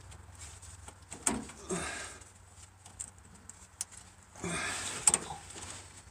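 Sharp clicks and short bouts of scraping as the stainless steel retaining clip is worked off the fuel filter's line fitting under a Ford E-350 van, with the loudest click about five seconds in.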